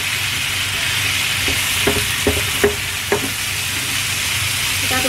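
Shrimp and sliced vegetables sizzling steadily in an oiled wok as a spatula stirs them, with a few short scrapes and taps of the spatula against the pan between about one and a half and three seconds in.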